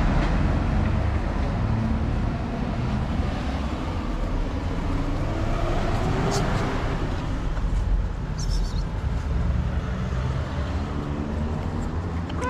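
Road traffic noise: a steady low rumble of vehicle engines.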